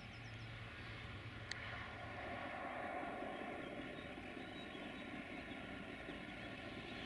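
Electroputere 060-DA (LDE2100) diesel-electric locomotive with its Sulzer diesel engine, heard approaching before it comes into sight as a steady engine hum that grows slightly louder. A single sharp click comes about a second and a half in.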